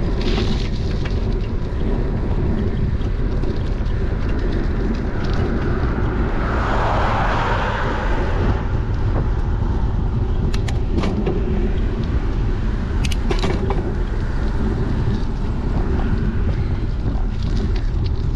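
Wind rushing over a bike-mounted GoPro action camera's microphone while riding, a steady low rumble. A hiss swells about seven seconds in, and a few sharp clicks come later.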